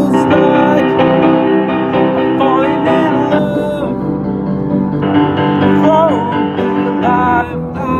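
A man singing a slow pop ballad over sustained keyboard chords, with short phrases and held, wavering notes a few times through.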